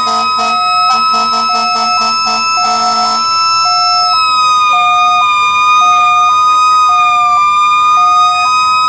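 Emergency vehicle sirens sounding together: a hi-lo two-tone siren stepping between two notes about once a second over a steady, high, slightly wavering siren tone. For the first three seconds a horn is also sounded in rapid short blasts.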